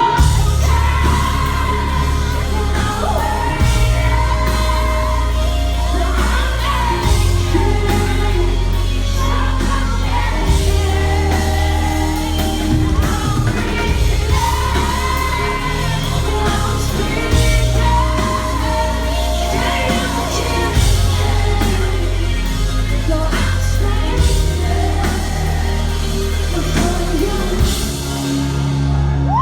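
Live electropop-rock band performing with a female lead vocal over a heavy, pulsing bass and full band, played loud through a venue PA.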